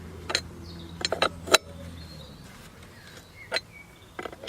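A spanner clicking and knocking on the blade bolt of a Bosch Rotak 320 lawnmower as the bolt is tightened: about six short, sharp clicks spread out, over a low steady hum that stops about two seconds in.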